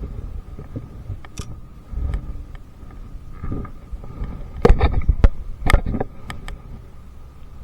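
Knocks and handling thumps in a small fishing boat over a low rumble. A few sharp knocks come in a cluster about five to six seconds in.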